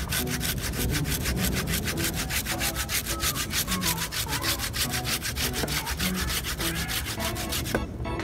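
Hand pruning saw cutting through a moringa branch in quick, even back-and-forth strokes, several a second, stopping near the end as the finishing cut goes through just above a node.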